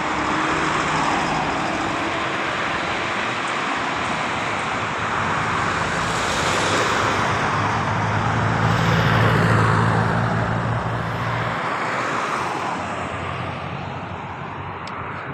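Road traffic noise: steady tyre and engine noise of moving vehicles, with a low engine hum that swells to its loudest about nine or ten seconds in and fades slightly near the end.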